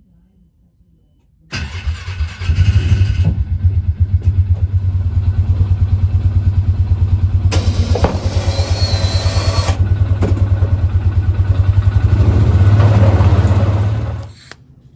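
A motor starts about one and a half seconds in and runs with a fast, even pulsing, a brighter rushing noise joining for about two seconds in the middle, then stops shortly before the end.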